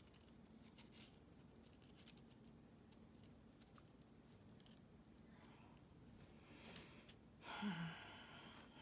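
Near silence with faint rustling and light ticks as hands handle yarn trim and paper on a cutting mat, and a brief louder rustle near the end.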